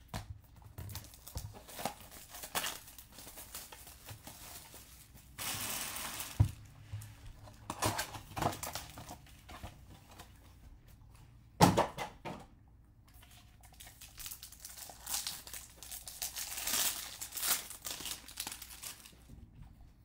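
Trading card packs from a Bowman Chrome hobby box being handled and torn open, with foil wrappers crinkling and rustling in irregular bursts. About twelve seconds in there is a single sharp knock.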